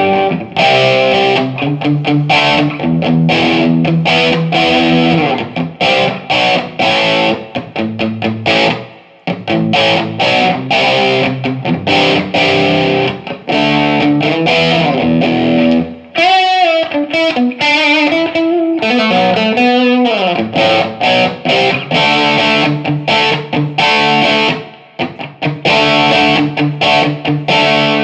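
Electric guitar played through a Laney IRT30 amplifier with distortion, mostly chords. About halfway through comes a short lead passage of wavering, bent notes. The amp is being sound-tested after a faulty effects-loop attenuation switch was replaced.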